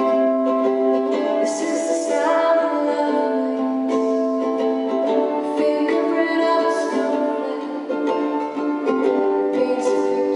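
Ukulele strummed as accompaniment while a woman sings a sweet love song with it.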